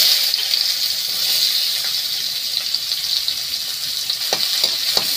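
Chopped onions sizzling in hot oil in a steel kadhai. The hiss starts at once as they hit the oil and then holds steady, with a few light clicks near the end.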